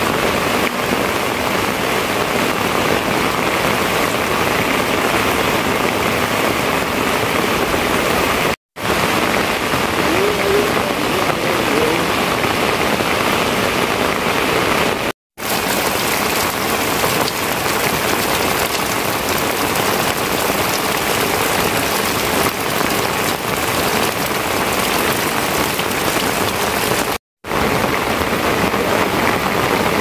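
Heavy rain falling steadily. The sound cuts out for a split second three times.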